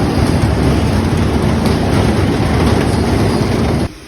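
Amusement park ride rattling along its track: a loud, steady rumble that cuts off suddenly near the end.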